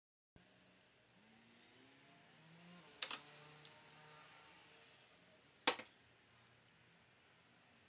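Hand tools being handled over an engine bay, clicking against metal: a sharp double click about three seconds in, a lighter one just after, and a louder single click near six seconds, over faint room tone.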